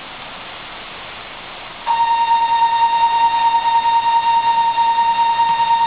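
A steady, high electronic buzzer tone comes on sharply about two seconds in and holds without a break, over a faint hiss in the train car.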